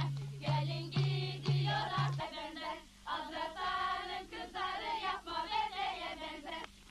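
A group of women singing a folk song together, with a low beat about twice a second that drops out about two seconds in, leaving the voices alone.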